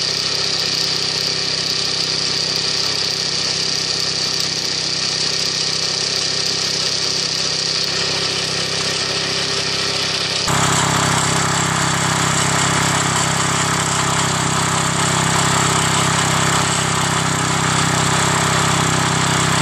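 Small lawn mower engine running steadily while driving an alternator. About halfway through the sound changes abruptly to a louder, fuller running note.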